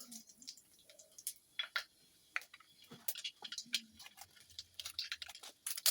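Methi (fenugreek) seeds crackling in hot oil in a kadai: scattered, irregular small pops and ticks as the seeds fry.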